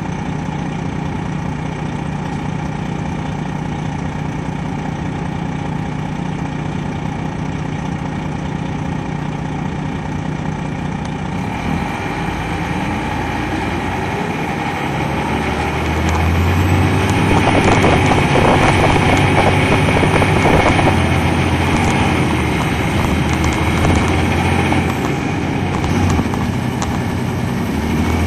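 Detroit Diesel Series 60 engine of an MCI D4500 coach, heard from on board, running with a steady note. About twelve seconds in its pitch rises and it grows louder and heavier as the bus pulls away under load, with a faint high whine. It eases off briefly near the end, then comes back.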